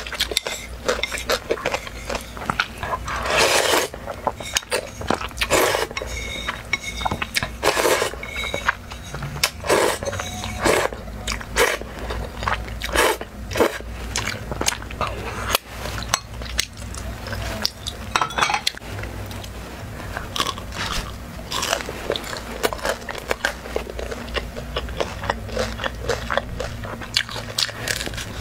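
Close-miked eating of black bean noodles: wet chewing and slurping with many short clicks and smacks, and a few longer slurps.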